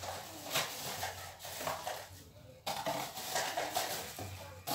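Popped popcorn rustling and crunching as it is scooped and pushed about with a plastic cup in a popcorn machine's glass cabinet, with light scraping and clatter and a short pause about two seconds in.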